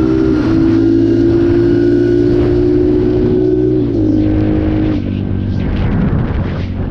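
2019 Apollo 250RX dirt bike engine running at high, steady revs while riding, with wind on the microphone. The revs drop a step about four seconds in and again about five seconds in, then the engine note fades under the wind noise.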